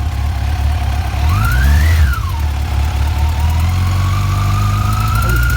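Yamaha FJR1300's inline-four engine idling, revved briefly about a second in and settling back, then its pitch creeping slowly up. It carries a mechanical noise that the owner suspects may be the cam chain.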